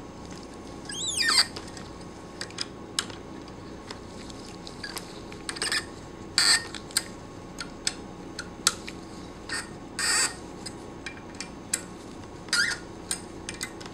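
Screws on a vacuum pump's piston head being tightened by hand tool a little at a time: scattered metal clicks and several short scraping rasps, with a squeak about a second in.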